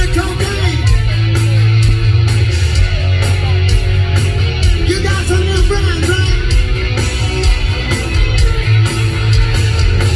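A rock band playing live: distorted electric guitar, heavy bass and drums keeping a steady beat.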